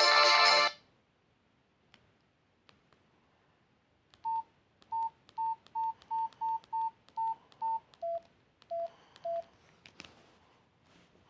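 A ringtone played through a Nokia C2-01's speaker cuts off just under a second in. After a pause with a few faint button clicks come the phone's short single-tone key beeps: nine at one pitch, then three at a lower pitch.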